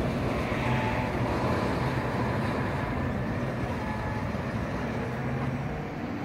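Steady low rumble of road traffic, with a faint thin whine in the first few seconds.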